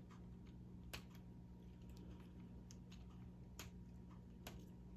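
Faint, irregular clicks of K'Nex plastic parts being snapped and pressed together, one or two a second, over a low steady hum.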